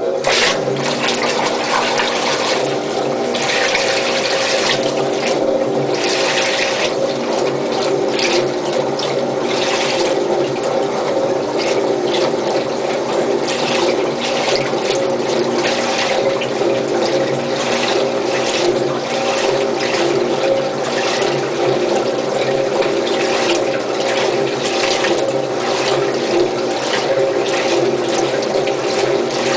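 GE Moffat washing machine filling with water, the rush of water through the inlet valve into the tub, starting abruptly and running on steadily under a constant hum.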